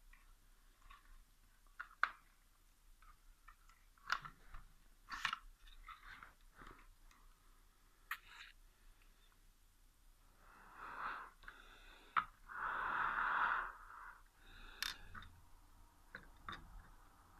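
Handling noise: scattered light clicks and rustles, with two short rushes of noise about ten and thirteen seconds in.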